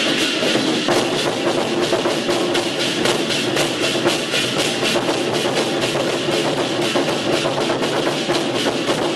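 A troupe of large barrel drums beaten together in a fast, even beat, with hand cymbals clashing along.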